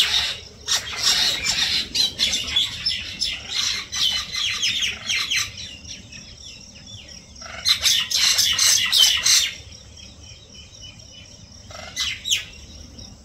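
Common mynas calling, a fast chatter of short high chirps and squawks that comes in bouts, with a brief call near the end.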